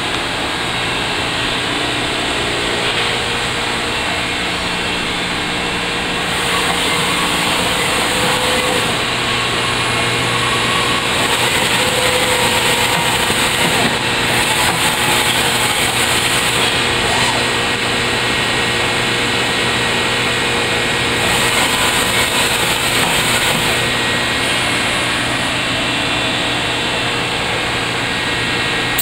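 Machinery running steadily, a constant hum with a few faint steady tones. A high hiss comes and goes every few seconds.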